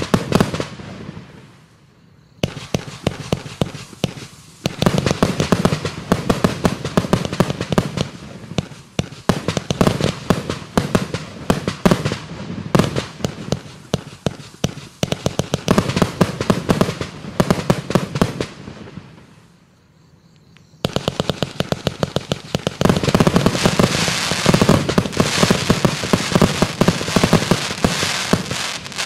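A 144-shot 25 mm compound firework cake firing in rapid succession, tubes launching and shells bursting overhead in quick trains of bangs. The firing drops off briefly about two seconds in and again just before twenty seconds, then runs densest near the end.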